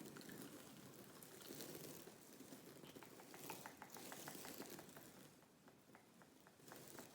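Faint, close-up ASMR trigger sounds: a soft scratching, rustling hiss with a run of small quick clicks through the middle.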